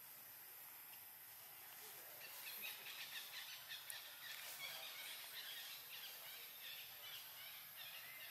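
Faint outdoor forest ambience with a run of short, high chirping calls starting about two seconds in.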